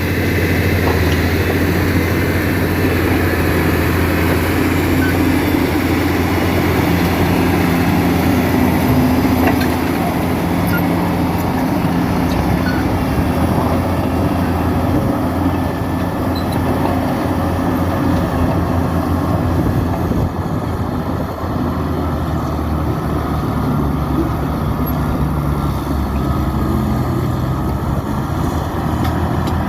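New Holland 7D crawler dozer's diesel engine running steadily under load, its pitch shifting slightly now and then.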